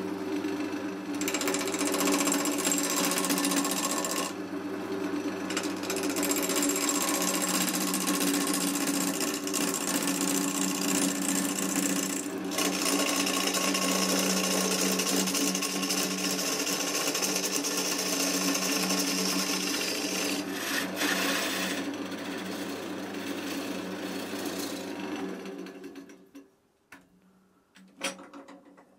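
Woodturning lathe spinning an ash blank while a gouge cuts its outside: a steady hiss and rasp of the cut over the motor's hum, with a few short breaks in the cut. Near the end the lathe is switched off and winds down, followed by a few light knocks as the blank is handled.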